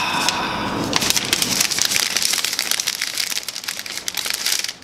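Thin plastic protective sleeve being peeled off a new laptop and crinkled in the hands: a dense, continuous crackling that stops abruptly near the end.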